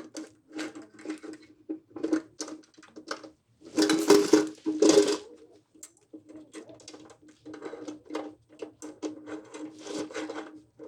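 Metal tools and hardware clicking and clattering during hand assembly, over a steady low hum. A louder rustling clatter comes about four seconds in and lasts a second or so.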